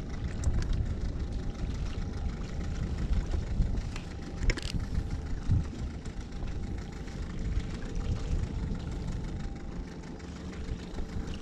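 Small boat's outboard motor idling steadily, with a brief high chirp about four and a half seconds in.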